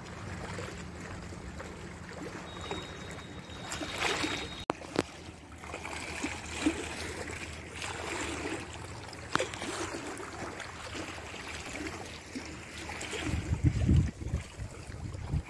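Small waves lapping and splashing against a stone lakeshore embankment, with a gust of wind buffeting the microphone near the end.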